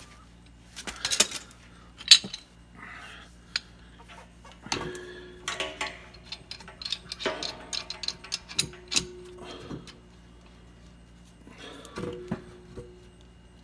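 Clinks and knocks of metal plumbing parts and tools being handled, irregular and sharp, with a few short squeaks in between.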